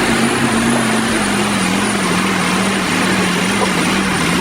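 Turbocharged engine of a heavy wood-processing machine running hard, with a high, steady turbo whine over the engine's hum. The engine note drops slightly about a second in.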